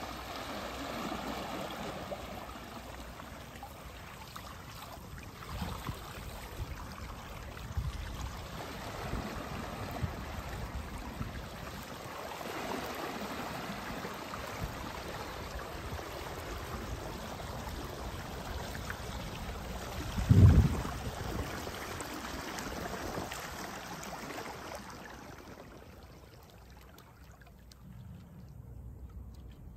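Water rushing and trickling along the twin pontoons of a pedal-driven Schiller water bike gliding through calm water. One loud low thump comes about two-thirds of the way through, and the rush fades near the end.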